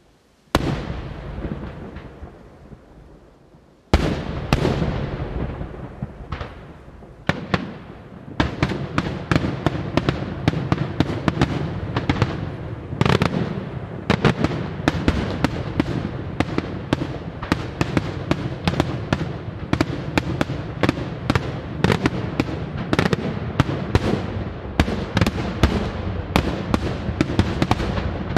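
Daytime aerial firework shells bursting: single loud bangs about half a second and four seconds in, each echoing away, then from about eight seconds a rapid, continuous barrage of bangs and crackles.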